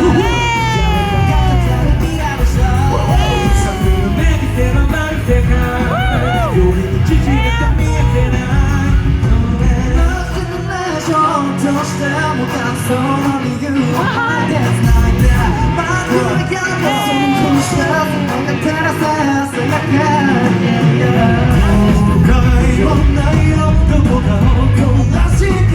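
Live J-pop performance by a male vocal group, singing over a loud backing track with a heavy beat, with shouts and yells over the music. The deep bass drops out for several seconds in the middle and returns near the end.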